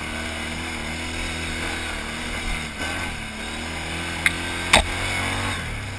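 Can-Am Outlander XMR 1000 ATV's V-twin engine running steadily under load on a steep rocky climb, with two sharp knocks a little after four seconds in; the engine note eases off near the end.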